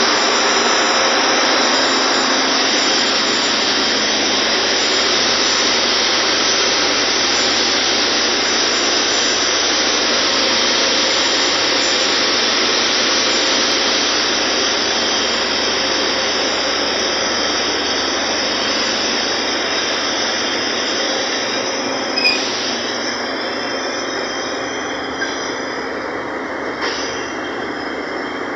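Ship's engine-room machinery running: a loud, steady mechanical noise with a faint high whine, easing a little in level over the second half. A couple of light knocks near the end.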